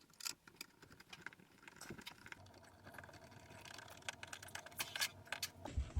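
Faint, irregular light clicks and taps of screws and a hand tool being handled while the dishwasher's mounting bracket is screwed in place.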